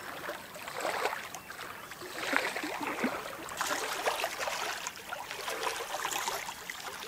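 Small waves lapping and splashing against a lakeshore, coming in irregular surges.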